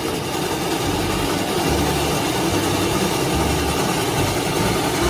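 Heavy locomotive engine running steadily, a low uneven rumble under a loud hiss.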